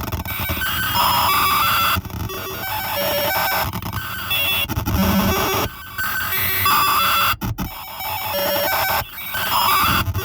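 Error Instruments Data Synth putting out harsh glitchy noise: buzzy tone fragments and static that change abruptly every couple of seconds, with a brief dropout about seven and a half seconds in.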